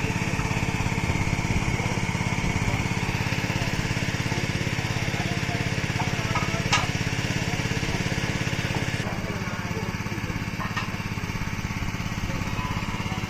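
Small engine running steadily, with a sharp click about seven seconds in and another near eleven seconds.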